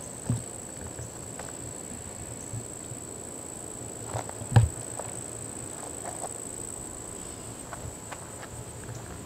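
Insects trilling with a steady high-pitched tone, with scattered footsteps knocking on a hard surface. The loudest step lands about four and a half seconds in.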